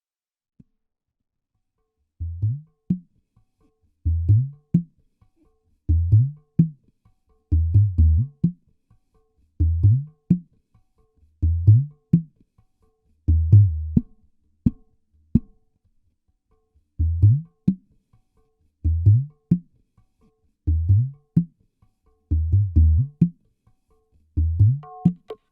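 Bass-heavy dangdut koplo music: after about two seconds of silence, deep drum strokes that bend upward in pitch come in short groups about every two seconds, the low kendang-style beat of a sound-check track. Near the end, higher ringing percussion tones join in.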